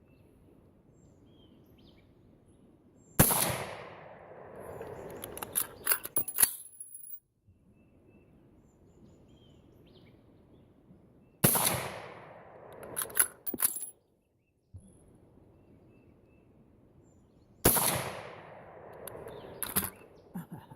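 Three single rifle shots from an AR-15 firing cast-bullet .223 Remington handloads, each followed by a fading echo and, about two seconds later, a quick run of metallic clicks as the action is worked by hand. The light loads fire but fail to cycle the gas-operated action.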